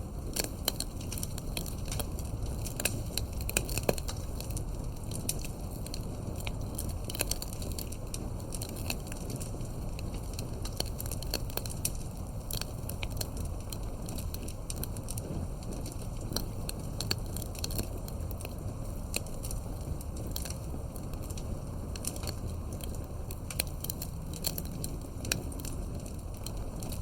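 Campfire burning steadily: a low rumble of flames with frequent sharp crackles and pops from the burning wood, a few louder pops a few seconds in.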